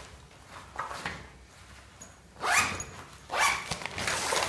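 A fabric hanging toiletry bag being folded and rolled up by hand, with soft rustling and two short, loud scraping strokes about two and a half and three and a half seconds in.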